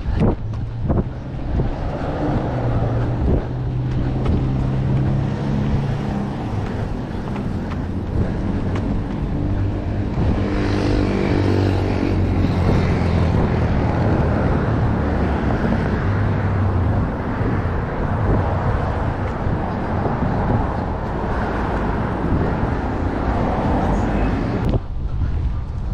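City street traffic: vehicle engines running and passing, with one engine rising and falling in pitch about ten seconds in.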